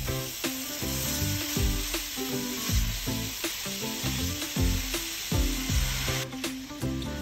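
Minced beef sizzling in a hot oiled frying pan while a spatula breaks it up and stirs it. The sizzling cuts off abruptly about six seconds in, with a tune playing underneath throughout.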